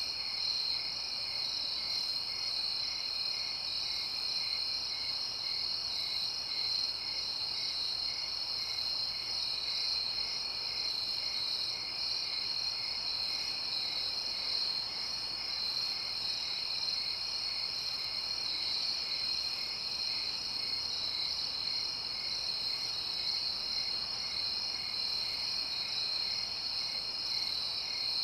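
Crickets chirping at night in a steady, unbroken high trill, with a softer, lower chirp repeating about twice a second underneath.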